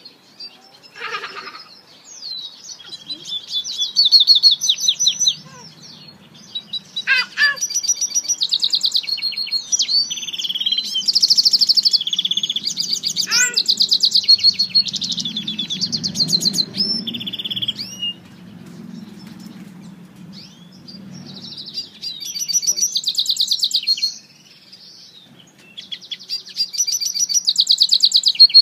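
A caged African citril finch × canary mule singing: long runs of fast trills and rapid twittering, broken by a few quick downward-sweeping whistles, with pauses of a few seconds in the latter half.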